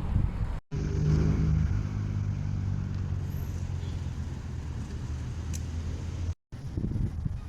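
A motor vehicle's engine humming at a steady pitch, loudest just after a sudden cut near the start and slowly fading, then cut off abruptly near the end.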